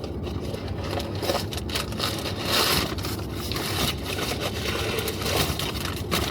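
Crinkling and rustling of wrapping around glazed ceramic pieces as they are unwrapped by hand, in irregular bursts, busiest a little before halfway, over a steady low hum.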